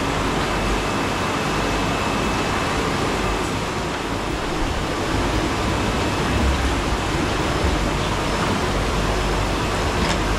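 Steady, even rushing background noise of a busy wholesale seafood market hall, with no single sound standing out.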